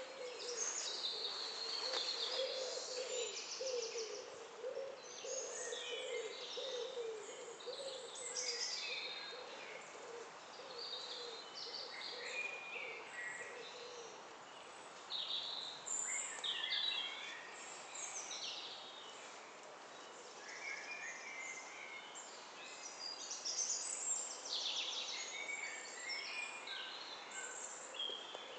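Woodland birdsong: several birds singing and calling in short chirps and trills throughout, over a soft outdoor background hiss. A low wavering tone repeats beneath them during the first half.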